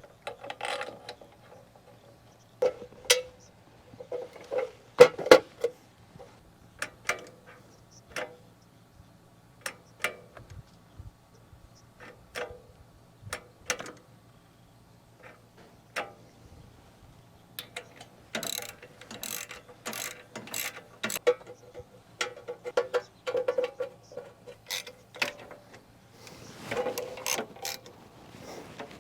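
Irregular clicks and clanks of hand tools working on metal parts as the PTO engagement lever assembly of a John Deere 2630 tractor is put back together, with a denser run of quick clicks about two-thirds of the way in.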